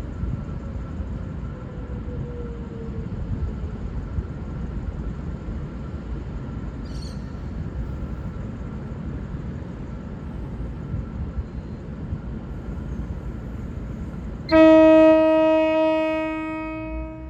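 V/Line VLocity diesel multiple unit running with a steady low rumble, then sounding its horn in one long, loud blast about fourteen seconds in that falls off over its last couple of seconds.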